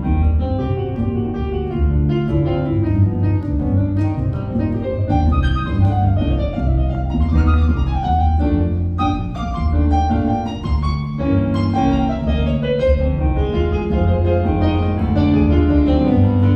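A live band playing an instrumental break of a song, with piano over a bass line and no singing.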